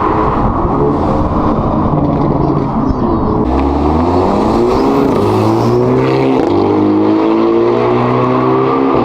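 2024 Hyundai Elantra N's turbocharged 2.0-litre four-cylinder accelerating from low revs under boost, its exhaust note running through a titanium mid-pipe with the resonator deleted. The pitch climbs, drops sharply about three and a half seconds in and again a few seconds later, then climbs again each time.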